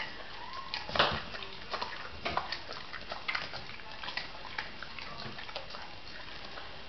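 Springer spaniel crunching a piece of raw carrot: irregular sharp cracks, the loudest about a second in, thinning out near the end.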